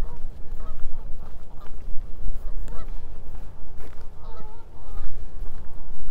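A flock of geese honking from open water, many short calls scattered and overlapping, over a low rumble of wind on the microphone.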